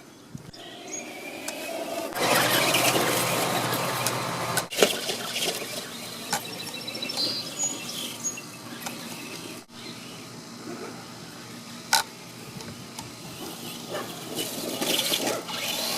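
Electric Traxxas Slash short-course RC truck driving over dirt and gravel: motor running with tyres and chassis scrabbling over the ground. It gets louder about two seconds in, cuts off abruptly twice between edited clips, and has a sharp click near the end.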